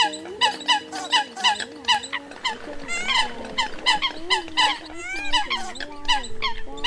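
Eurasian coots calling: a rapid run of short, sharp calls, about four a second, overlapping as several birds call at once, over a few steady lower tones.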